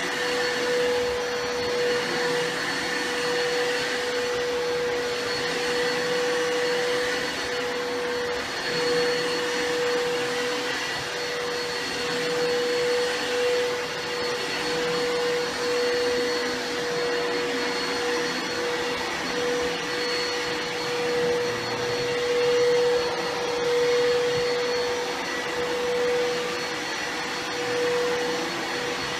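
Bissell CleanView PowerBrush carpet cleaner running continuously: a steady motor whine with one constant tone. Its level swells and dips a little every second or two.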